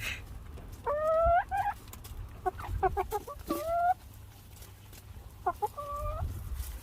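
Chickens clucking and calling in three bouts, about a second in, in the middle and near the end. Each bout has a few short clucks and a longer drawn-out call.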